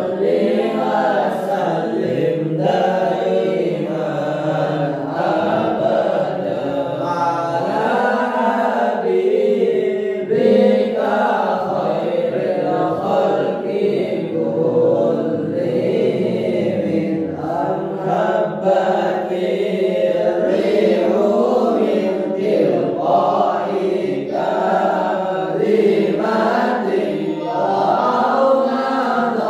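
Boys' voices chanting Arabic shalawat verses in praise of the Prophet, read from their books, with no instruments. The chant runs on steadily, rising and falling in long melodic lines.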